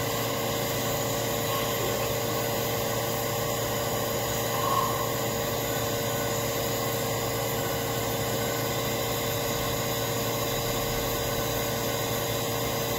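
Steady machinery hum and hiss with several unchanging tones, the constant background of running machinery in a machine shop.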